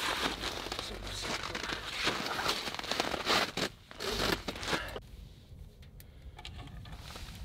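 Fabric and clothing rustling and crinkling as a person moves about and sits down on a low seat, dense for the first few seconds, then dying down to a few faint clicks and taps.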